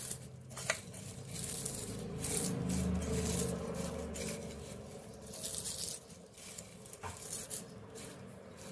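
Crisp deep-fried onion slices rustling and crackling under fingers as they are spread and tossed on a plate, with a couple of light clicks.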